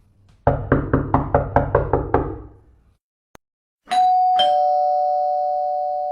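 Knocking on a door, about nine quick raps in two seconds, followed after a short pause by a two-note ding-dong doorbell chime whose tones ring on and slowly fade. These are common household sound effects for setting a dog barking.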